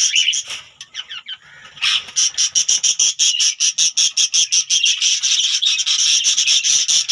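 Budgerigars chirping in a fast, even stream of high-pitched calls, about seven a second. They ease off to a few fainter sliding calls for about a second and a half, then start again loudly.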